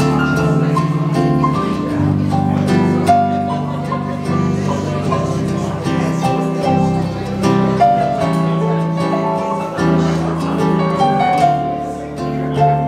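Live acoustic guitar and electric keyboard playing a slow song together, with plucked guitar notes over held keyboard chords.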